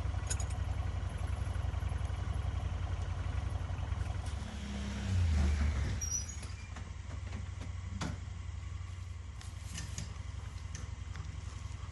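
An engine running steadily at low speed, rising in pitch and loudness for about a second and a half around five seconds in, with a single sharp knock about eight seconds in.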